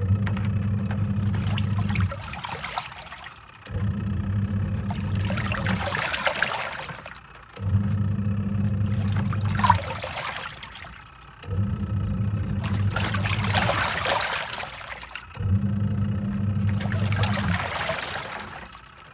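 Twin-tub washing machine's wash tub at work: the motor hums for about two seconds at a time, then pauses while the water swishes and surges, over and over as the pulsator turns back and forth through the load. About five of these cycles pass.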